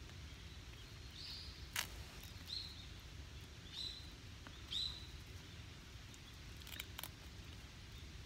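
A bird gives four short, high calls about a second apart over a quiet outdoor background. Three sharp clicks are heard: one about two seconds in, and a close pair near the end.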